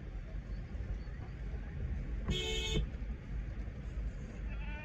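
A vehicle horn honks once, briefly, about halfway through, heard from inside a car over a low rumble. Near the end a goat starts bleating.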